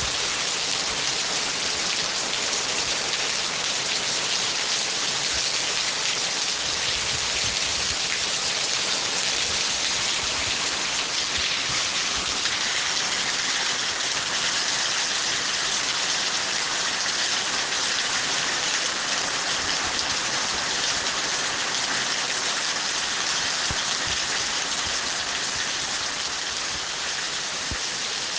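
Steady rain falling, a dense even hiss of drops hitting surfaces.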